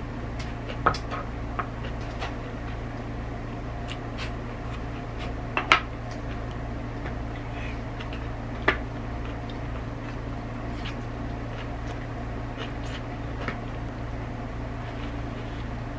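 Chopsticks knocking and clicking against a ceramic bowl a few times while eating, the loudest knock about six seconds in, over a steady low hum.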